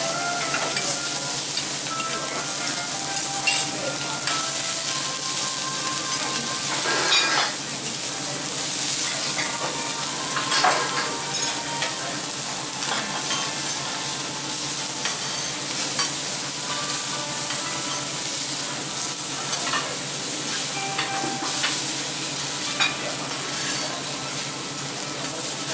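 Food frying and sizzling steadily on a teppanyaki iron griddle, with occasional sharp clicks and scrapes against the hotplate.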